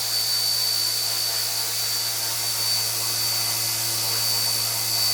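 Small RC ERA C032 radio-controlled helicopter hovering: a steady high-pitched electric motor whine over a low, even rotor hum.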